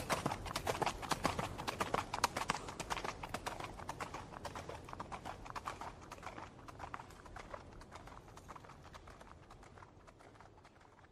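Horse hooves galloping, a fast, dense run of hoofbeats that fades out steadily and is gone shortly before the end.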